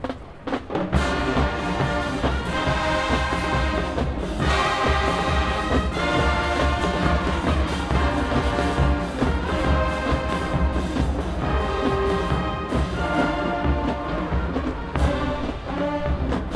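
Full marching band playing, brass over drums. A few drum strokes come first, and the whole band comes in about a second in.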